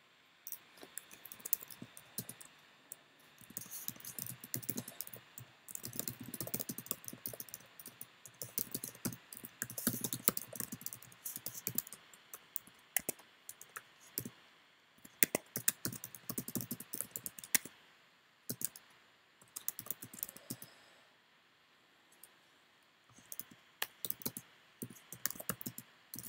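Typing on a computer keyboard: bursts of quick key clicks, thinning out for a few seconds about three quarters of the way through.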